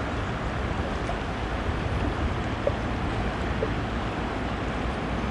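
Steady rush of flowing river water, with wind rumbling on the microphone.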